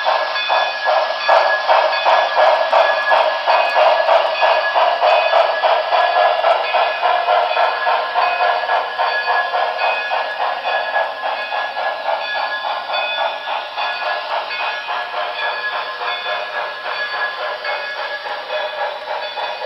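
Onboard sound of a Broadway Limited Santa Fe 2-8-2 Mikado model steam locomotive: a steady, rapid steam chuff as the train runs, gradually getting a little quieter in the second half.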